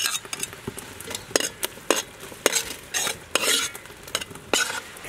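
Metal spoon stirring a simmering sauce in an aluminium pot, scraping and clinking against the pot wall now and then, over a low sizzle of the cooking sauce.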